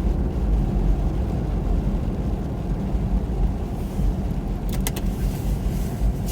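Steady low rumble of a car's engine and tyres on a snow-covered road, heard from inside the cabin. A few light clicks come about three-quarters of the way through.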